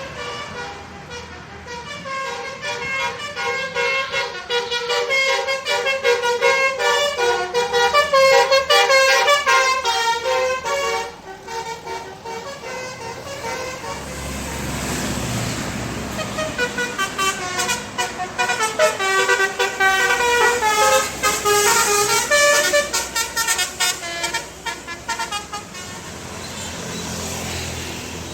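Bus telolet horn, a multi-tone musical horn, playing a fast stepping melody for about ten seconds. After a short gap in which a bus engine rumbles past, it plays the melody again.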